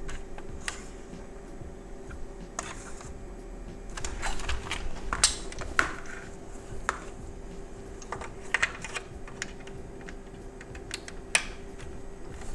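Irregular light clicks and taps of plastic and small parts as the gauge needles of a Chevrolet Silverado instrument cluster are turned by hand for a rough pre-setting, over a faint steady hum. The clicks are densest about four to six seconds in.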